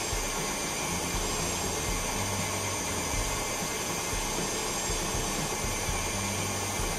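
Stand mixer running steadily with its wire whisk, beating Swiss meringue in a glass bowl as cubes of butter are added to turn it into buttercream.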